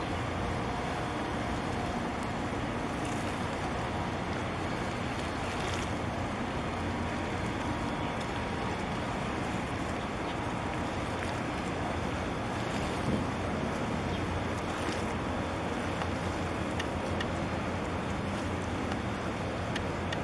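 Steady low rumble of a large container ship passing close by, mixed with wind on the microphone and water lapping.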